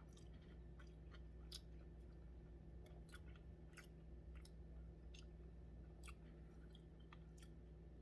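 Faint close-up chewing of sushi, with scattered small wet mouth clicks every half second or so.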